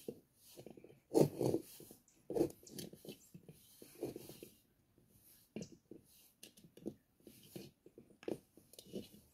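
Hand kneading stiff oats-and-flour dumpling dough in a metal bowl: irregular squishing, pressing and rubbing of the dough against the bowl.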